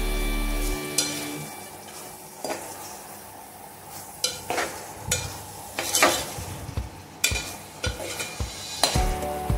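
A metal spatula stirring and scraping cluster beans and minced meat as they fry in masala in a pan. The food sizzles, and the spatula knocks and scrapes against the pan at irregular moments. Background music cuts off about a second in.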